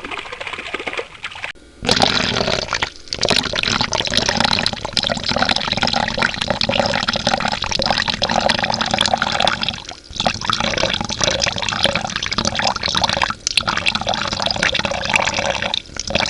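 Water running and splashing, quieter at first and then full and steady from about two seconds in, with a few short breaks.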